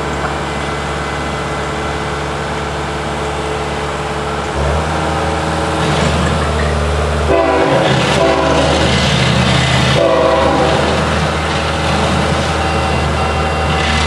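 Freight train led by GE diesel locomotives (an ET44AH and a CW44AC) approaching, its engine drone getting louder about four and a half seconds in. Past midway the lead locomotive sounds its horn in two blasts, a long one and then a shorter one.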